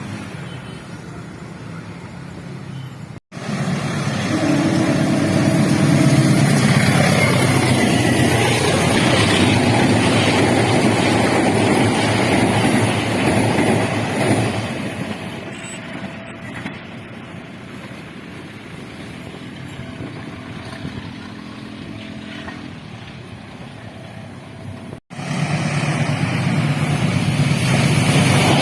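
Indonesian train's locomotive air horn sounding in long held blasts over the loud running rumble of the train. It is loudest in the first half and quieter later, with two abrupt breaks where the recording is cut.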